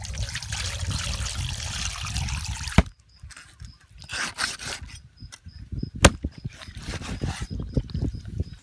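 Meat cleaver chopping raw chicken on a wooden board, with one sharp chop about six seconds in among softer knocks, thuds and handling sounds. Before that, for about the first three seconds, a steady rush of noise that stops abruptly at a cut.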